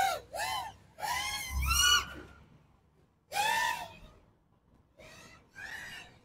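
FPV mini quadcopter's motors and propellers whining in short throttle bursts, the pitch rising and falling with each, about six blips with pauses between.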